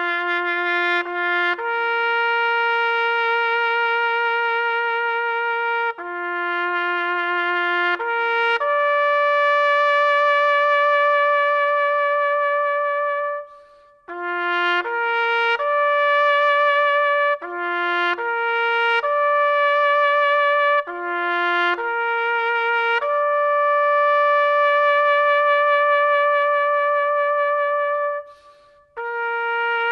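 Background music: a slow solo melody of long held notes, one note at a time with no accompaniment, pausing briefly twice between phrases.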